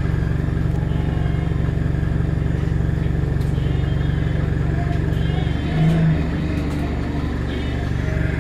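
Bus engine running steadily, a constant low rumble heard from inside the passenger cabin, briefly louder about six seconds in.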